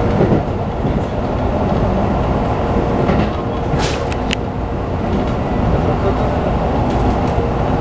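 Keikyu New 1000 series electric train car running at speed, heard from inside: a steady rumble of wheels on rail with a faint constant tone. A few sharp clicks come about four seconds in, and another near the end.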